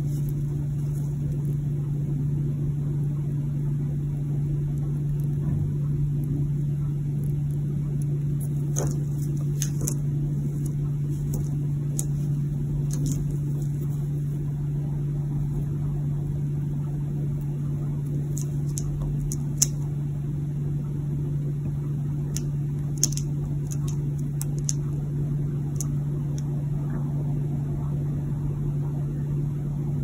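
A steady low hum with scattered faint sharp clicks, a few louder ones past the middle, as a budgerigar pecks and chews at a small black plastic clip with its beak.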